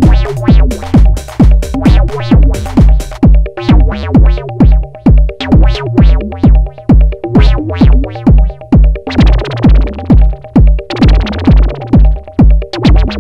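Live modular-synth techno: a steady kick drum about two beats a second under a held synth chord, with ticking hi-hats that drop out after about three seconds. A hissing noise sweep swells in about nine seconds in and fades near the end as the hats come back.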